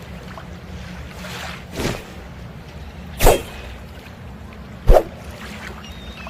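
Folding sword snapping open and shut: three sharp snaps, a softer one about two seconds in and two loud ones about a second and a half apart, over a low steady hum.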